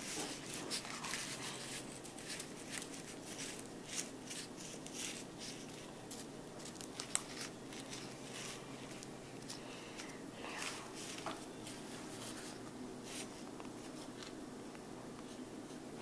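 Fingers pressing graham cracker crumbs into a disposable aluminium foil pie pan: faint, scattered scratching and crinkling, busiest in the first half and thinning out after that.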